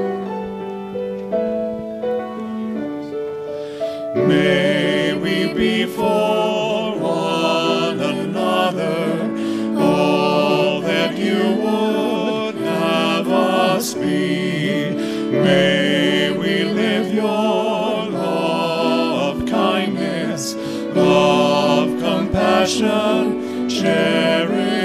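A hymn sung with instrumental accompaniment: the accompaniment plays alone with held notes, and the singing comes in about four seconds in and carries on over it.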